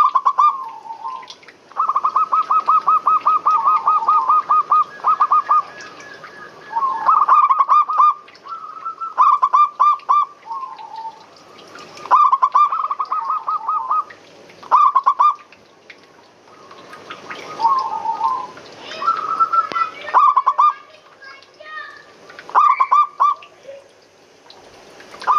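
Zebra doves (perkutut) cooing, phrase after phrase: one long rattling run of quick coos about two seconds in, then shorter bursts of rapid coos every second or two.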